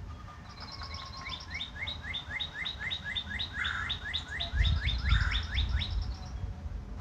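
A songbird singing a fast run of about twenty clear notes, each sliding down in pitch, about four a second, while a second, higher bird trills over the start and end of the run. A brief low rumble comes in about four and a half seconds in.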